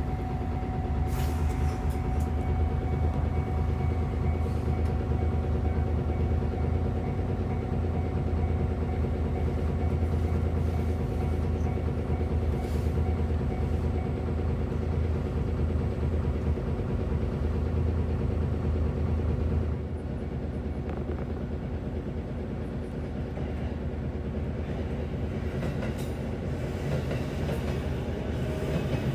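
Mitsubishi Fuso Aerostar city bus's diesel engine idling, heard from inside the passenger cabin as a steady low hum; the hum drops away about twenty seconds in. Near the end, an E233-series commuter train draws alongside and its running noise builds.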